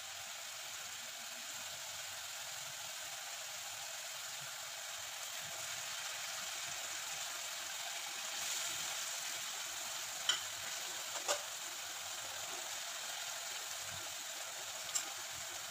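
Spiced gravy boiling in a kadai with a steady sizzling hiss, which swells briefly about eight seconds in as fried tilapia pieces are slid into it. A few sharp clicks follow, from a spatula against the pan.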